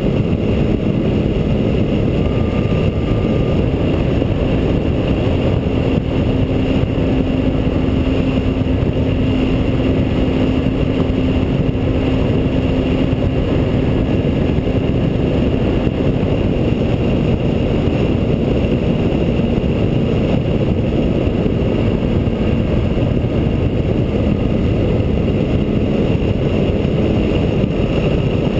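Wind rushing over a camera mounted under the wing of a radio-controlled T-28 Trojan model plane in flight, with the model's engine droning steadily beneath it. The engine note rises a little a few seconds in and eases back past the middle.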